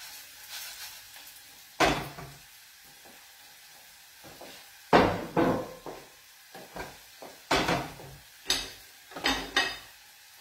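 Pots, pans and a wooden spoon clattering on a gas hob: about six sharp knocks, the loudest about five seconds in, over a faint sizzle of rice toasting in a pan.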